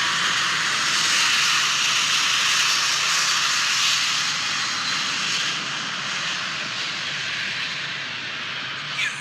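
Jet noise from a British Airways Airbus A350's Rolls-Royce Trent XWB turbofans at takeoff thrust as the airliner departs, super loud, easing gradually in the second half as the aircraft moves away.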